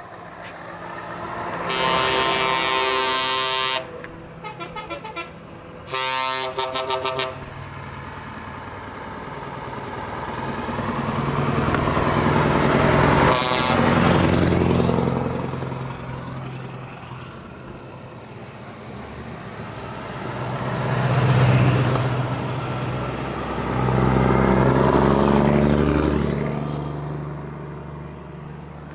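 Truck air horns blowing: a long blast, a quick run of short toots, then another long blast. Heavy diesel trucks then drive past close by one after another, each engine swelling and fading.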